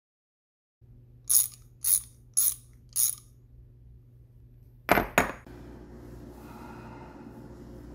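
Four sharp mechanical clicks, evenly spaced about half a second apart, then a sharp double click about five seconds in, followed by a steady low hum.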